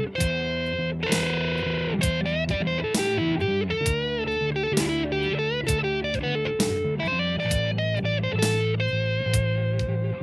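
Electric guitar music: a lead line with bending notes over sustained bass notes and a steady beat.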